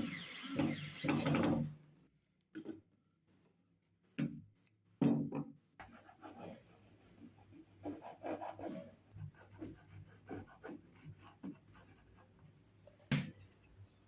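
Electric drill running down and stopping in the first second or two, then scattered knocks, taps and rubbing as wooden vise parts are handled, with one sharp knock near the end.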